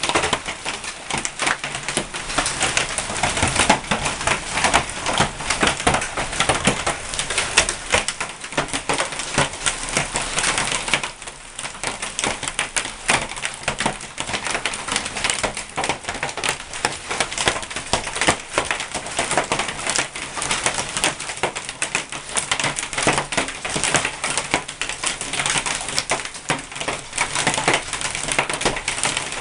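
Hailstones pelting down in a storm, a dense, continuous clatter of countless small impacts that eases briefly about eleven seconds in.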